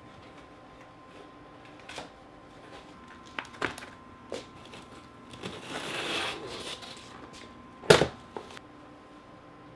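Groceries being unpacked onto a kitchen counter: several light knocks as packages are set down, a rustle of packaging about halfway through, and one sharper knock near the end as an item is put down, over a faint steady hum.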